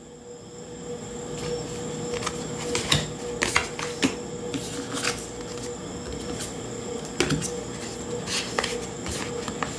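Tarot cards handled on a table: irregular taps and clicks as cards are set down on the piles and the next card is picked up, over a faint steady hum.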